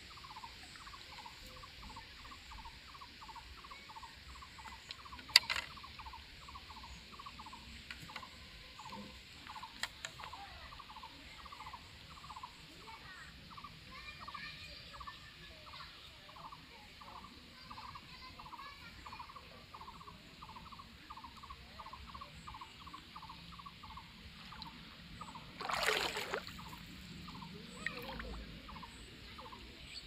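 A steady run of short, high chirps from a small calling animal, about two a second. A single sharp click comes about five seconds in, and a brief louder whoosh comes near the end.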